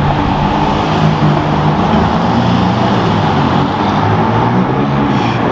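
Car engines and tyres in steady street traffic, among them a McLaren 570's twin-turbo V8 moving off at low speed. The level stays even throughout, with no sharp revving.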